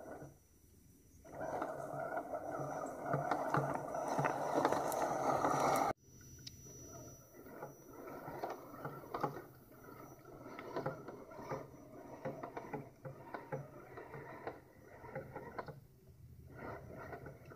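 Axial SCX10 Trail Honcho 1/10-scale RC crawler's motor and gears whining as it drives over river rocks, with its tyres and chassis clicking and knocking on the stones. The drive noise stops briefly near the start, and about six seconds in the sound changes abruptly to a quieter run with many small clicks.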